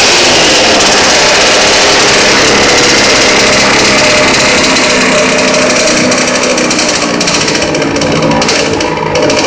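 KTM 65 two-stroke single-cylinder dirt bike engine running loudly, close to the microphone, its top end freshly rebuilt with a new reed cage. From about six seconds in the level wavers up and down with the revs, dipping briefly near the end.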